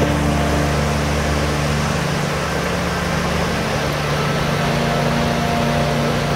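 Steady hum of a drone's propellers, several tones that shift slightly in pitch, over an even rushing noise of falling water.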